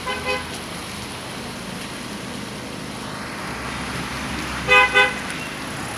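Vehicle horn: a short toot right at the start, then two quick, louder toots about five seconds in, over the steady noise of slow road traffic.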